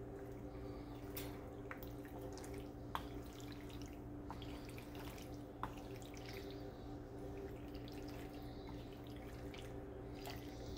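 Wooden spoon stirring penne through a tomato-cream sauce in a frying pan: faint wet squelching with scattered soft clicks, two of them a little louder about three and five and a half seconds in, over a steady low hum.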